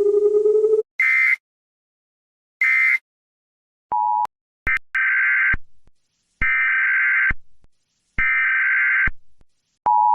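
Emergency Alert System alarm tones. A rising electronic tone cuts off about a second in. Short screeching data-like bursts follow, then three longer ones like SAME header bursts, and near the end the steady two-tone EAS attention signal begins.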